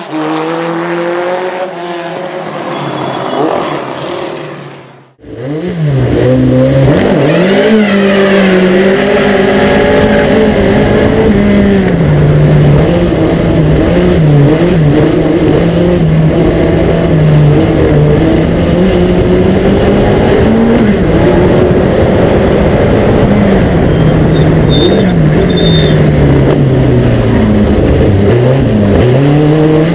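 1959 Cooper-Climax T51's 2.5-litre Coventry Climax FPF four-cylinder engine, first heard from trackside as the car pulls away, fading and cutting off briefly about five seconds in. It then comes back loud and close from on board, its pitch rising and falling over and over as the car accelerates, changes gear and slows through the corners.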